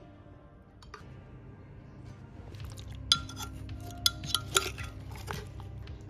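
Sharp clinks and knocks against a glass blender jar as fresh mango and frozen strawberries are scraped in with a utensil. The clinks come in a cluster through the middle and latter part.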